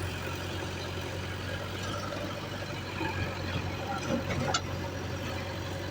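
Heavy diesel engine running steadily at a low, even speed, with a brief click late on.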